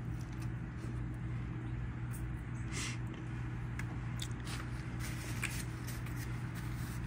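Faint chewing and mouth sounds of a man eating barbecued pork ribs, with scattered short clicks, over a steady low hum.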